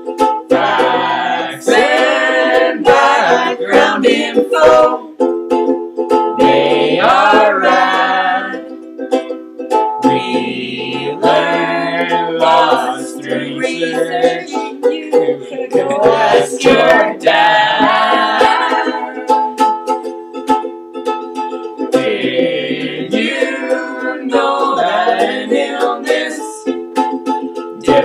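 Ukulele strumming chords under a sung melody, the voice coming in phrases of a few seconds with short breaks between.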